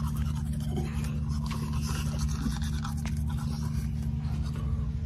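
Two people brushing their teeth close to the microphone: a fast, scratchy scrubbing, over a steady low hum.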